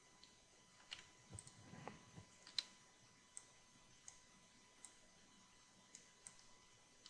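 Faint clicks of a computer mouse and keyboard as the mesh is edited. A single sharp click falls about every three-quarters of a second through the middle, with a faint low rustle shortly before the loudest click.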